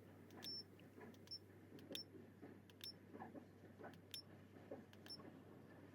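Near silence: faint room tone with soft, short high-pitched ticks about once a second and faint handling noise.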